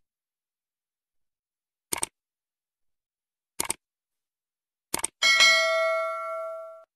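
Three short mouse-style double clicks about a second and a half apart, then a bell chime that rings and fades away: the sound effects of an animated like, subscribe and notification-bell button.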